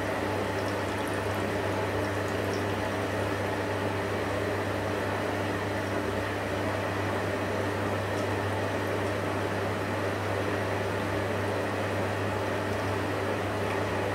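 Electrolux EWF 16589 W front-loading washing machine in the wash phase of a 60 °C cotton programme: the motor hums steadily as the drum turns and water and laundry slosh inside. The sound is even and unbroken.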